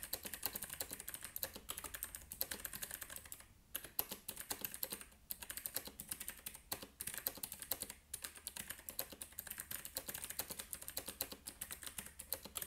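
Fast typing on a mechanical keyboard with clicky Outemu blue switches: a dense, loud run of key clicks, broken by a few short pauses.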